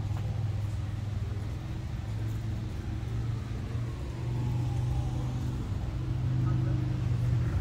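A low, steady engine rumble that grows louder in the second half.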